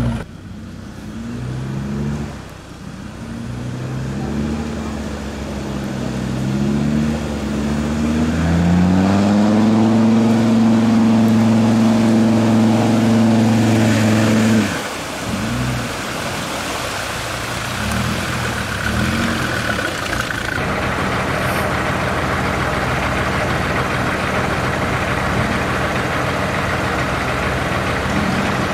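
Land Rover Discovery TD5's five-cylinder turbodiesel revving up hard under load as the truck ploughs through deep mud on big mud tyres, holding high revs for several seconds before dropping off sharply about halfway. After that the engine runs lower beneath a steady churning and splashing of mud and water.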